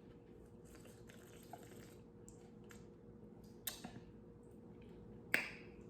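Faint sips and mouth sounds as wine is tasted, a few short soft smacks and slurps with a sharper click about five seconds in, over a low steady room hum.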